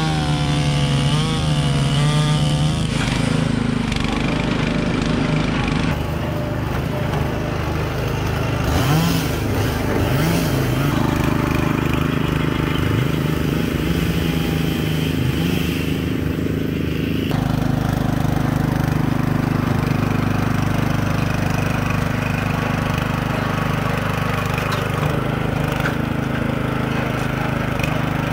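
Small gasoline engines running steadily, with a couple of brief revs. The sound changes abruptly about 6 s and 17 s in.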